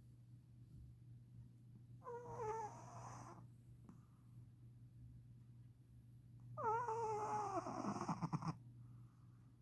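Shih Tzu snoring: two loud snores a few seconds apart, each falling in pitch, the second ending in a rapid fluttering rattle.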